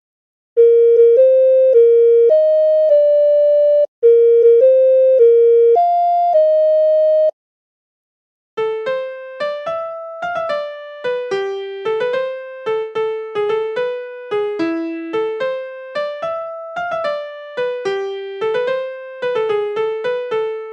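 Siemens Xelibri 1 mobile phone ringtones playing: a slow electronic melody of held notes, one phrase played twice, then after a short pause a faster tune of quick notes.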